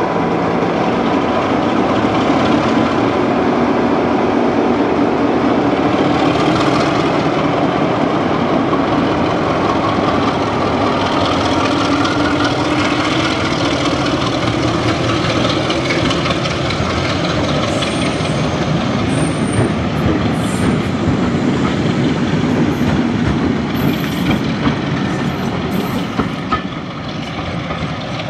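A train running on the line, with the steady noise of its wheels on the rails, easing a little near the end.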